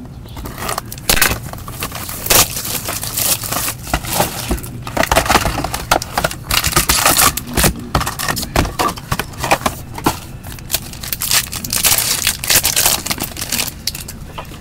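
Trading card box and its foil pack wrapper being torn open and handled: a dense, irregular crackling and crinkling.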